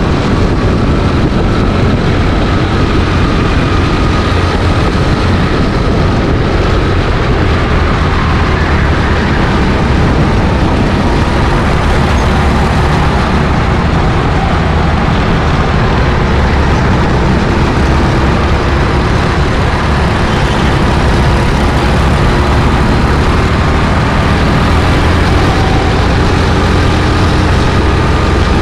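Go-kart engine running hard through a lap, heard onboard, its note rising and falling slightly as the kart slows for corners and speeds up again, over a heavy, constant low rumble.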